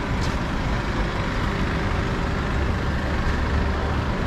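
Street traffic noise with the steady low rumble of a heavy vehicle's engine running.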